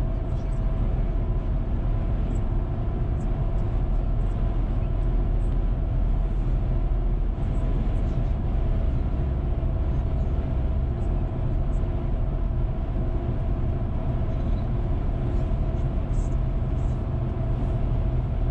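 Steady road noise inside a moving car's cabin: a low rumble of tyres on asphalt and the engine, with a faint steady hum over it.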